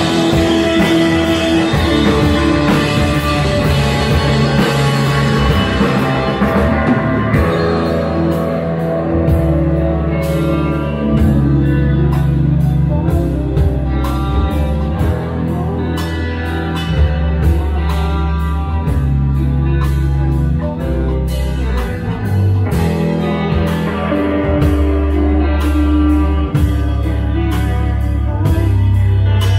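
Live rock band playing: electric guitar, drum kit and keyboard. The cymbal wash thins out about a quarter of the way in and builds again near the end.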